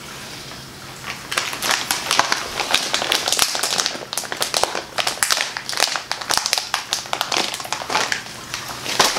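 A plastic snack bag crinkling and crackling as it is handled, a dense run of crackles starting about a second in.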